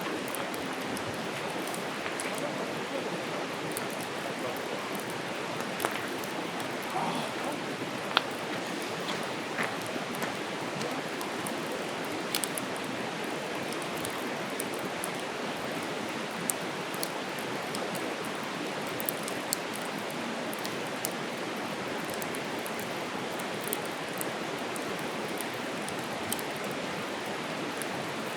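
Wood campfire crackling, with scattered sharp pops and snaps over a steady rushing hiss; the loudest pop comes about eight seconds in.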